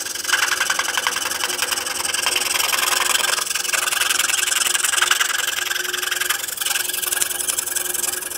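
Scroll saw running steadily with a very fine blade, cutting through a stack of thin veneers for marquetry. It is a fast, even buzz of blade strokes over a steady motor hum.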